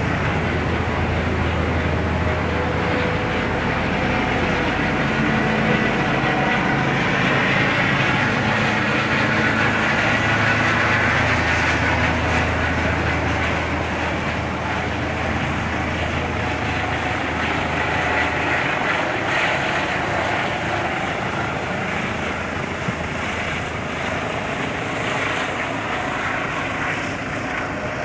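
Helicopter running close by, its rotor and turbine engine a loud, steady noise with a low hum and a faint high whine, as it comes in to land on a ship's deck.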